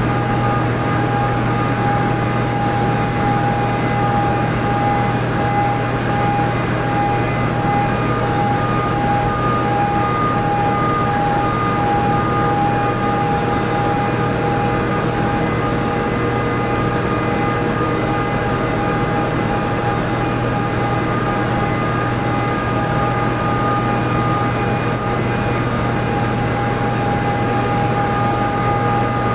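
Hydropower plant machinery running with a steady, unchanging drone: a low hum under a constant high-pitched whine.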